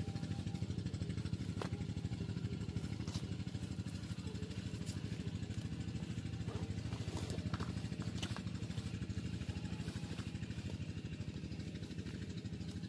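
Steady low drone of a small engine running, with fast even pulsing and no change in pitch, and a few light clicks over it.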